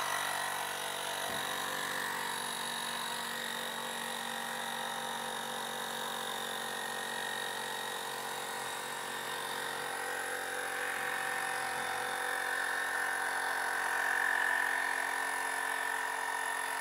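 Portable cordless tire inflator's small electric compressor running steadily with a high whine while pumping up a Onewheel GT tire. The note grows a little stronger and louder in the second half as the tire pressure builds.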